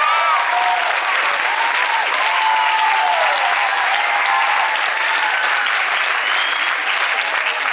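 Audience applauding and cheering, with whoops rising and falling over the clapping.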